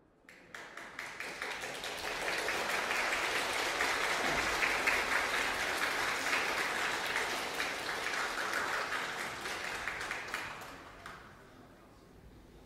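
Audience applauding. The clapping swells quickly to a full, steady level, then dies away about eleven seconds in.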